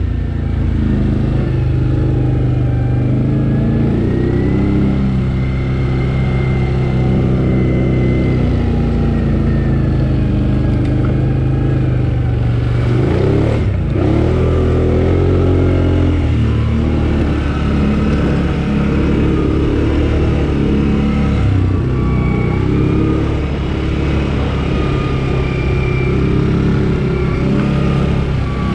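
ATV (quad bike) engine running under way, its note rising and falling with the throttle; about halfway through the pitch drops sharply and climbs again.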